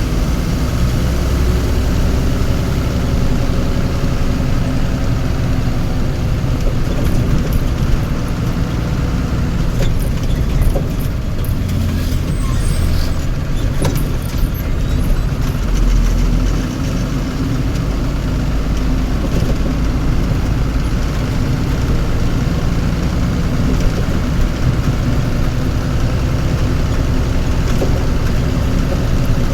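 Vehicle engine running steadily, a loud low rumble, with a few faint clicks about halfway through.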